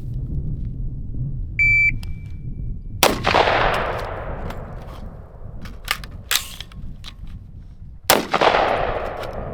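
Shot timer beeps once, then a rifle shot rings out about a second later; after a few sharp metallic clicks of a magazine change comes a second rifle shot about five seconds after the first, each shot trailing off in a long echo. Together they make up a timed one-shot, reload, one-shot drill, 6.52 seconds from beep to last shot.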